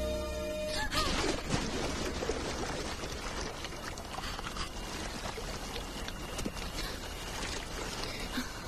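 A big wave of swimming-pool water splashes down onto the pool deck about a second in, then keeps running and trickling across the paving. Held music notes cut off just before the splash.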